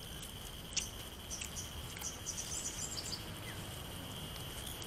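Outdoor ambience: a steady high-pitched insect drone, with scattered bird chirps. There is a sharp click a little under a second in and a fainter one at about two seconds.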